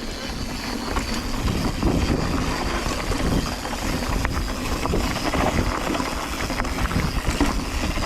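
Mountain bike riding down a dirt trail: tyre noise on the dirt and wind rumbling on the camera microphone, with scattered clicks and knocks from the bike over bumps. It gets louder about two seconds in as speed picks up.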